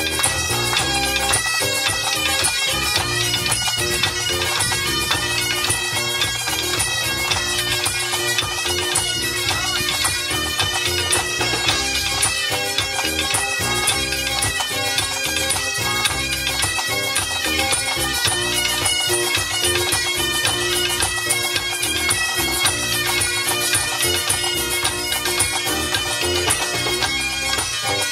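A band of Highland bagpipes playing a Breton tune together over their steady drones, backed by drums.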